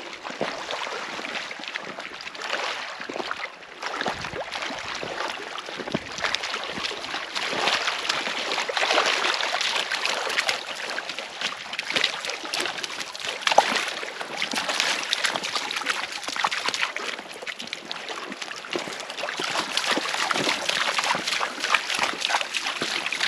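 Small lake waves lapping and splashing on a rocky gravel shore: a continuous wash of small splashes that swells and eases.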